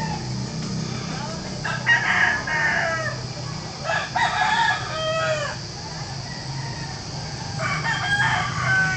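Rooster crowing three times, a few seconds apart, over a steady low hum.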